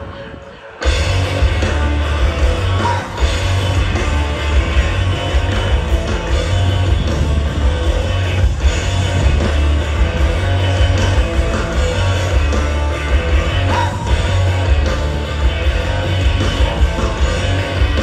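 Live rock band playing loud through a venue PA, with heavy pulsing bass, guitar and singing. The loud music cuts in abruptly about a second in, after a quieter fading passage.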